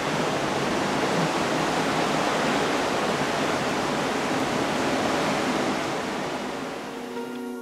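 Steady rushing of wind and sea along the side of a moving cruise ship, seen from a balcony over whitecapped water. Soft music fades in near the end.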